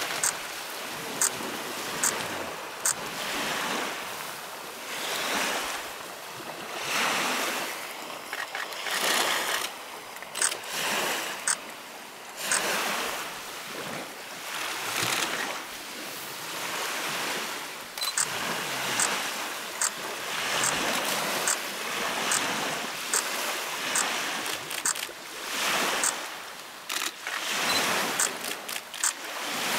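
Waves washing and lapping on a gravel lakeshore, swelling and ebbing every second or two, with a camera shutter clicking repeatedly, sometimes singly and sometimes in quick runs of several shots.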